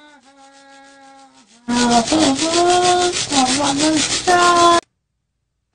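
Toothbrush scrubbing in a fast, even rasping rhythm, with a pitched humming tone that steps between a few notes over it. A fainter steady hum comes first; the loud scrubbing starts about two seconds in and cuts off suddenly near the end.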